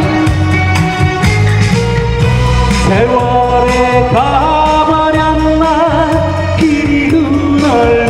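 A man singing a Korean song into a microphone over a backing track with a steady beat.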